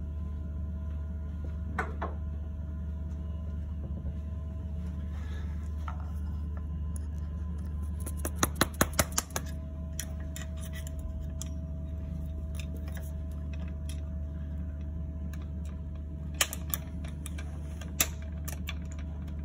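Sharp metal clicks and taps of a hand tool working the locking tab washer on a saildrive propeller hub, bending it over onto the nut and the bolt. A quick run of about six taps comes near the middle, with single clicks before it and near the end.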